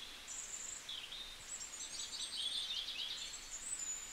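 Small birds chirping and singing in short high calls, with a rapid trill about two seconds in, over a faint steady outdoor hiss.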